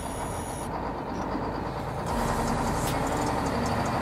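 Small electric DC gear motors of a homemade cardboard tow-truck model running steadily, getting louder about two seconds in.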